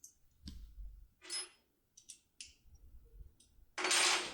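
Foil-wrapped impression pick working inside a lock cylinder: a scatter of short, faint metallic clicks and scrapes as the tool is moved, with a louder rasp near the end.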